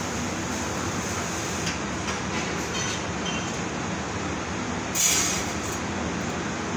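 Steady din of a metal fabrication and welding shop's machinery, with a brief loud hiss about five seconds in.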